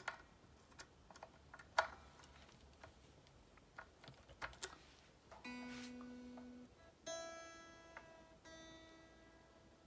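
Scattered small handling clicks, then three single notes plucked on a Squier Affinity Stratocaster's strings, each left to ring and fade. The last two are at the same pitch, as when the intonation is checked by comparing two notes on one string.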